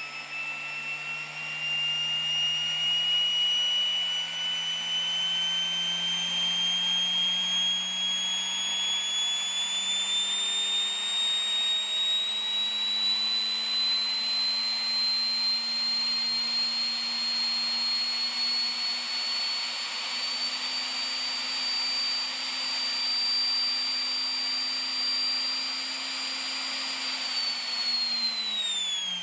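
Electric centrifugal blower serving as a homemade jet engine's supercharger, running on its own with no combustion. Its whine climbs steadily in pitch as its speed controller is turned up, holds level, then falls away near the end as it is turned down.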